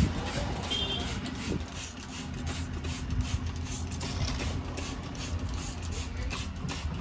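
Rapid, rhythmic scrubbing strokes on the fabric headliner of a car, as it is cleaned with detergent.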